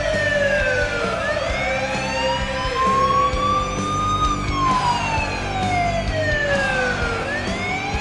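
Police-style siren used as an arena goal siren, wailing in slow sweeps: the pitch slides down for about three seconds, rises for about three, then falls again. It signals a home-team goal celebration.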